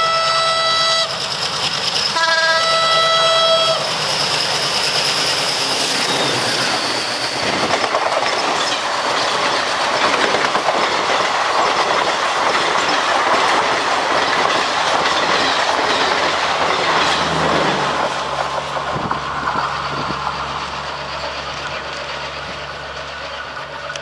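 A diesel locomotive's air horn, a chord of several tones, sounds a blast that ends about a second in, then a second short blast. The locomotive and its passenger coaches then roll past with the clickety-clack of wheels over the rails. The noise fades as the train draws away; the uploader takes the locomotive for a WDM3A.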